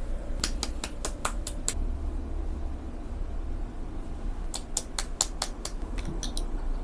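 Hands patting skincare product into the face: two runs of quick light slaps, about five a second, the first near the start and the second past the middle, over a low steady hum.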